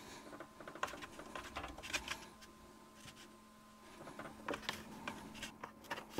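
Knife dicing a block of cheese into cubes on a cutting board: faint, irregular taps and clicks, over a faint steady hum.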